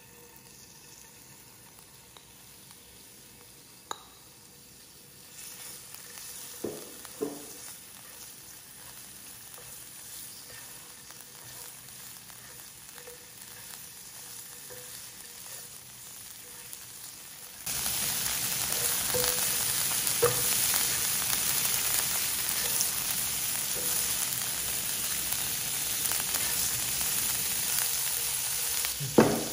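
Raw shrimp sizzling as they fry in hot oil in a non-stick frying pan. A spatula knocks and scrapes in the pan a few times as the shrimp are stirred. The sizzle is faint at first and turns suddenly much louder about two-thirds of the way through.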